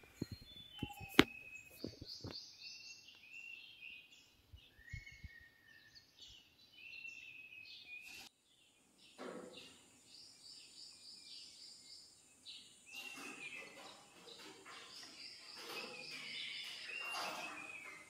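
Small birds chirping and calling in many short, high notes, with a few sharp knocks in the first two seconds.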